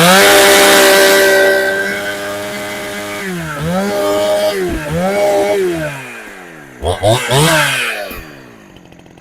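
Two-stroke Husqvarna 372XP clone chainsaw fitted with a genuine carburettor, held at full throttle for about three seconds. It then gets several quick throttle blips and drops back down near the end.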